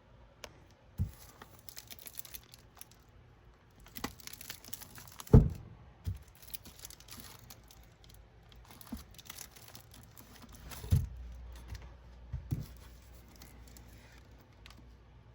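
Paper-wrapped firecracker bricks and packs being handled and moved on a shelf: crinkling and rustling of the wrappers, with a few knocks. The loudest knocks come about five seconds in and about eleven seconds in.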